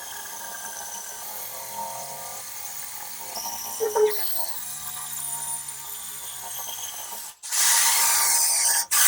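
Power drill with a tile drill bit boring into a ceramic wall tile. It starts suddenly and loud about seven and a half seconds in, with a short break just before the end.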